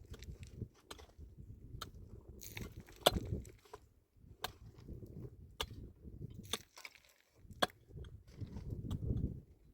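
Irregular sharp knocks and crunching handling sounds, roughly one a second, the loudest about three seconds in, over a low rumble.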